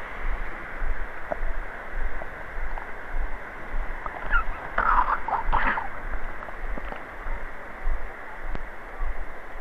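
Steady rushing outdoor background noise with wind rumbling on the microphone, and a brief burst of passersby's voices about five seconds in.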